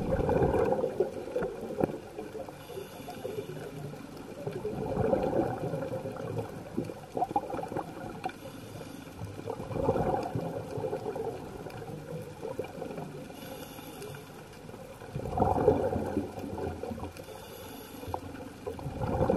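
Scuba diver breathing through a regulator underwater: a loud gurgling rush of exhaled bubbles about every five seconds, with a fainter hiss of inhaled air between the bubble bursts.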